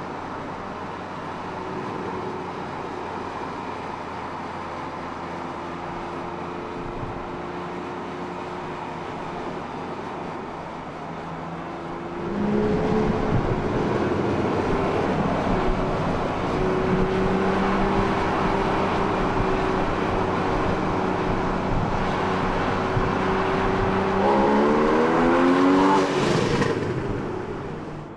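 Porsche Cayman S's 3.4-litre flat-six engine running on a race track, steady at first, then louder from about twelve seconds in. Near the end it revs up in a quick series of rising steps, then the sound falls away.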